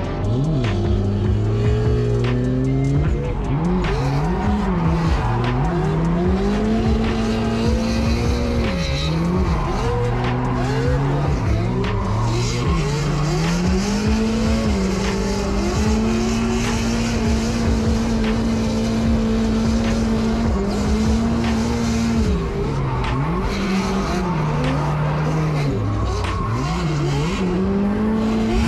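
Drift Miata's engine revving hard, held high and steady for long stretches and dropping sharply a few times before climbing again, with the tyres squealing as the car drifts.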